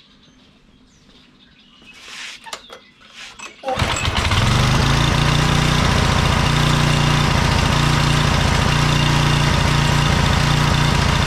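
A few handling clicks, then a Briggs & Stratton 875-series engine on a pressure washer is pull-started about four seconds in. It catches at once and runs steadily at full throttle on vegetable oil in place of motor oil.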